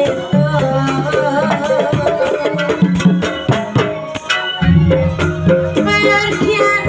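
Loud Javanese jaranan music: drums and rattling percussion under a wavering melody line. A deep sustained low tone comes in about two-thirds of the way through.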